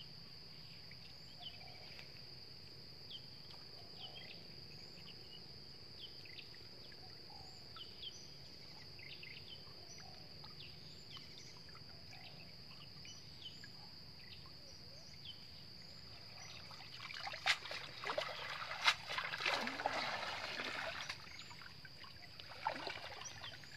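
Water splashing and pouring off a wet cast net as it is hauled up out of shallow water, loudest for several seconds after about sixteen seconds in and again briefly near the end. Under it runs a steady high insect drone with scattered faint chirps.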